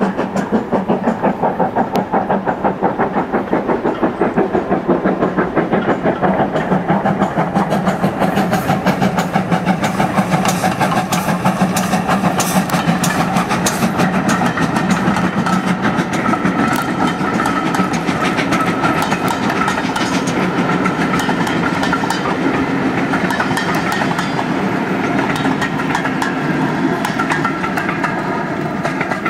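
Steam locomotive working a passenger train past, its exhaust beating in a fast, even rhythm, followed by the wheels of the coaches clattering over the rail joints as they roll by.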